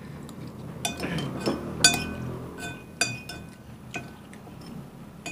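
Metal spoon clinking against a dish about half a dozen times, some strikes leaving a short ringing tone.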